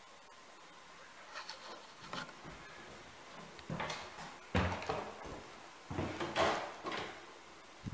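A series of short knocks, scrapes and rubbing sounds, like a cupboard door and other wooden fittings being handled. The loudest come about four and a half and six and a half seconds in.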